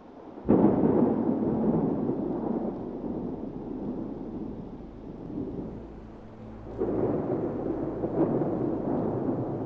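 Thunder: a sudden clap about half a second in that rolls on and slowly fades over several seconds, then a second clap near the end that rumbles on.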